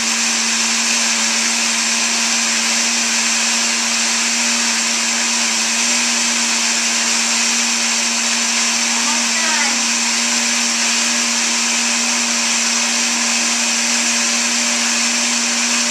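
Countertop blender with a glass jar running steadily, blending a thick spinach shake with ice cubes just added; a steady motor hum with a hiss over it.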